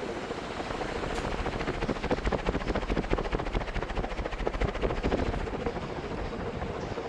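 SMC 56-inch industrial ceiling fan running, with a steady motor hum under the rush of air. For a few seconds in the middle, a rapid, even beating of the blades grows louder, then settles back.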